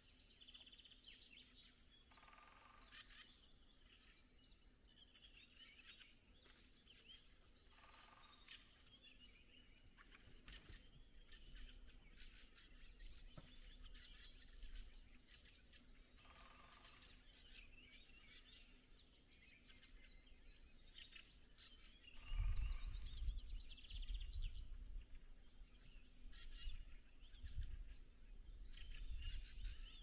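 Dawn chorus of several songbirds, many short calls and chirps overlapping, with one lower call repeating every six to eight seconds. From about two-thirds of the way in, a low rumble comes in uneven bursts and is the loudest sound.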